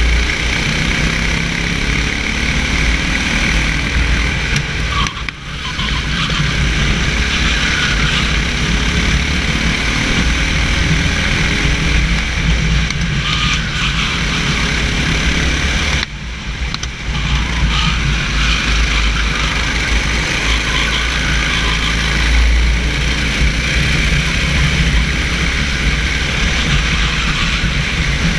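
Kart engine running hard at racing revs, heard from the driver's seat. The engine note drops briefly twice, about five seconds in and again about sixteen seconds in, where the driver comes off the throttle.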